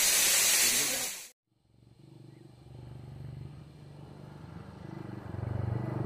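Steady rushing of a waterfall that cuts off about a second in. After a moment's silence comes a motorcycle engine running, faint at first and growing steadily louder as the bike approaches.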